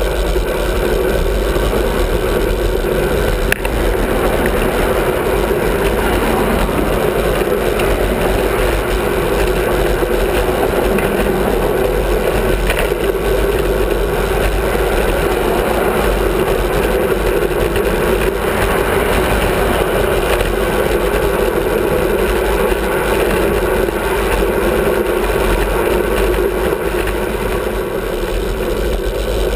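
Steady rush of wind and road noise from a bicycle riding along a highway bridge shoulder, with a car passing at the start. A single brief click comes about three and a half seconds in.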